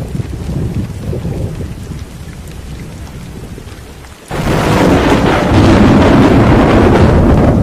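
Thunderstorm with rain: a low rolling rumble of thunder, then about four seconds in a sudden, much louder crack of thunder that keeps rumbling on.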